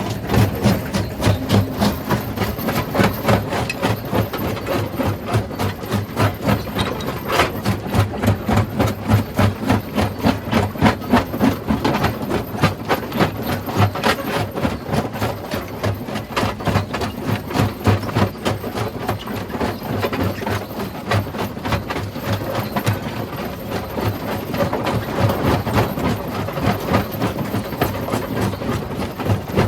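Rock-crushing machine at work: rapid, even knocking of steel striking rock, over a running diesel engine.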